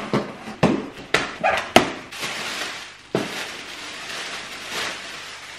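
Cardboard box being cut open with scissors and unpacked: several sharp clicks and knocks of scissors and cardboard in the first two seconds, then a steady rustling of box flaps and plastic air-pillow packing being pulled out.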